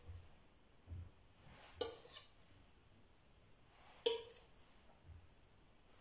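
Metal spatula clinking and scraping against the rim of a stainless steel bowl as buttercream is wiped off it: two clinks close together about two seconds in and another about four seconds in, each with a short metallic ring.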